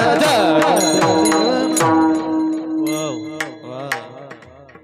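Marathi kirtan devotional singing: a high voice draws out a long, ornamented phrase over a held note, with pakhawaj drum strokes. The music fades into a brief lull about four and a half seconds in.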